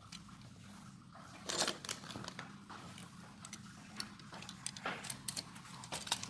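Plastic Lego bricks clicking and rattling as pieces are handled and pressed together: a string of small sharp clicks, with a louder clatter about one and a half seconds in.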